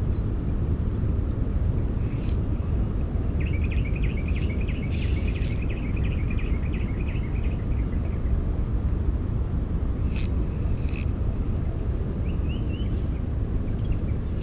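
A steady low rumble throughout, with a few sharp clicks and a stretch of fast, faint high ticking from about three to eight seconds in.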